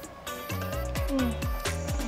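Background music with a steady beat: deep drum hits and a stepping bass line.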